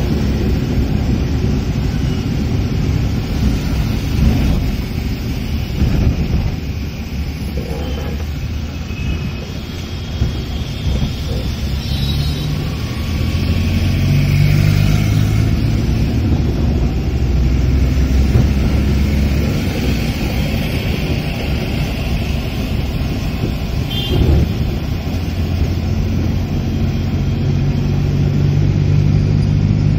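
Car driving through traffic on a wet road, heard from inside the cabin: steady engine hum and tyre and road noise.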